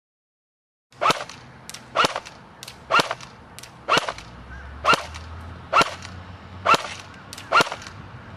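JG MK36 airsoft electric rifle firing single semi-auto shots, about one a second, eight sharp cracks starting about a second in, with a fainter tick between shots.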